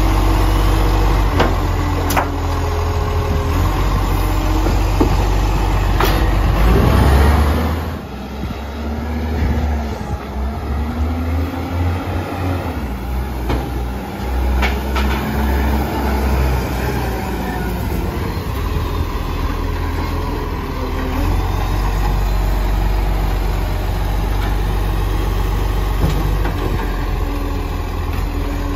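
Side-loader garbage truck's diesel engine running while its hydraulic lift arm tips a wheelie bin, with a few sharp knocks from the bin and arm. After about eight seconds the sound changes to a side-loader truck's engine running as it drives along the street, rising and falling in pitch.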